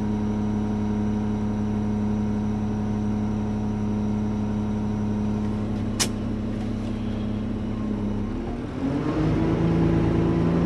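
Front-load garbage truck's diesel engine idling steadily, heard from inside the cab. A single short sharp snap comes about six seconds in, and near the end the engine note dips and then rises to a higher, louder steady pitch as the engine revs up.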